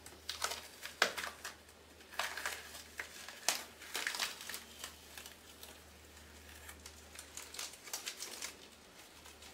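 Blue painter's tape being peeled off a painted surface and bunched up by hand: irregular crinkling and rustling crackles, thickest in the first few seconds and sparser after.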